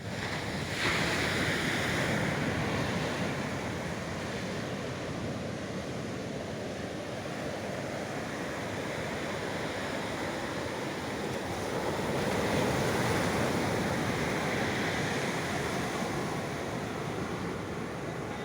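Ocean surf breaking and washing onto the beach, a continuous rushing that swells as a wave crashes about a second in and again about twelve seconds in, with wind buffeting the microphone.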